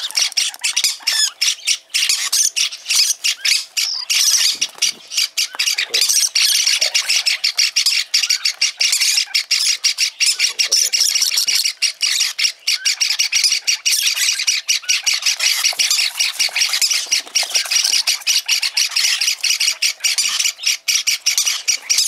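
Peach-faced lovebird chicks begging for food, a rapid and almost nonstop stream of high squawking calls, with only brief pauses, while food is held out to them in a feeding tube.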